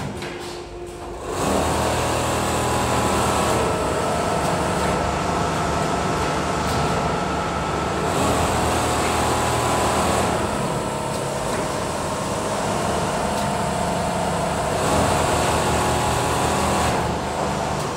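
Richpeace automatic sewing machines running together as a steady mechanical whir with several held tones. It grows louder about a second in and shifts in level a few times.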